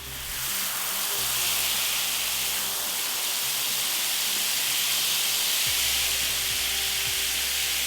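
Garden hose spraying water in a steady, even hiss, cutting off suddenly at the end.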